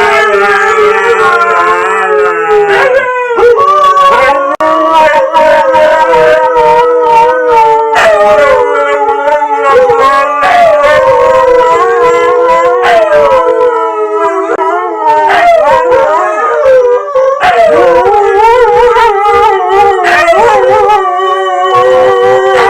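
Dog howling in long, wavering howls that rise and fall in pitch, with only brief breaks.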